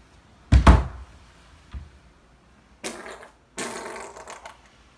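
Loud sputtering fart from behind a closed bathroom door about half a second in, falling in pitch, followed by a short faint one and then two rougher, noisier bursts in the second half.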